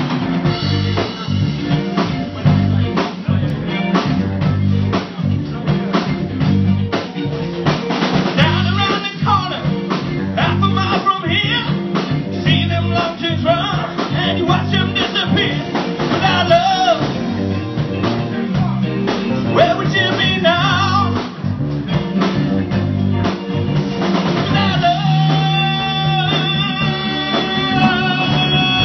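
A live rock band playing: electric guitars over a drum kit keeping a steady beat, with a man singing lead from about eight seconds in and holding a long note near the end.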